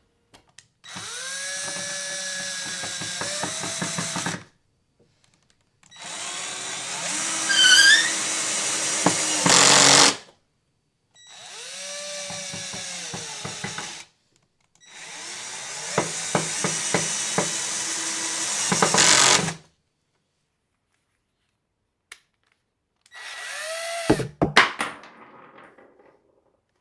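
Cordless drill-driver driving screws into a wooden board in five separate runs of a few seconds each. The motor whine rises in pitch as each run starts, and several runs end with sharp clicks and a louder burst.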